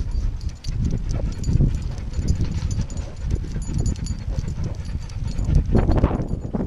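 Walking footsteps on a concrete sidewalk mixed with a dog panting as it trots along on a leash, picked up close by a body-worn camera. There is a louder rustle about six seconds in.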